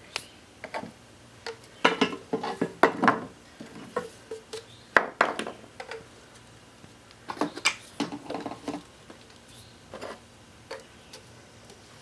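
PVC pipe and plastic fittings clicking and knocking, irregularly, as they are handled and pushed together for a dry test fit, with pieces tapping on a wooden workbench.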